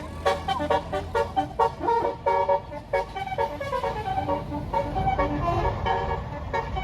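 Bus basuri (telolet) musical air horn playing a tune: a quick run of short notes, then longer notes sliding up and down, over the bus's engine running.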